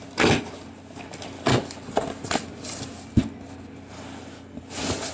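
Cardboard shipping box being opened and handled by hand: a series of short rustles and scrapes as the tape and flaps are pulled, with a sharp thump about three seconds in.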